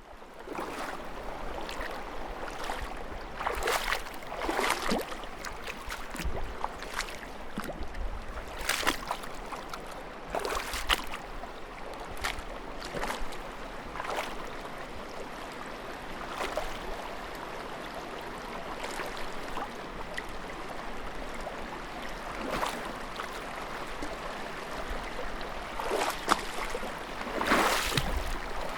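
Footsteps wading through water, a splash with each step at uneven intervals of a second or two, over a steady wash of moving water.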